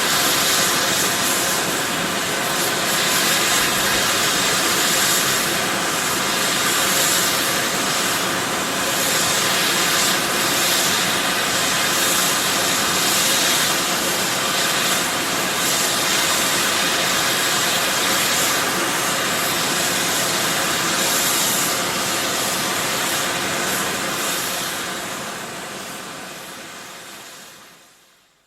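Close-up sulphur fumarole venting volcanic gas with a loud, steady, powerful hiss that surges slightly, fading out over the last few seconds.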